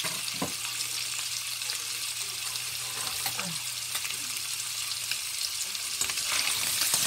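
Diced Spam and carrot frying in hot oil in a nonstick pan: a steady sizzle that grows a little louder near the end, with a faint low hum underneath.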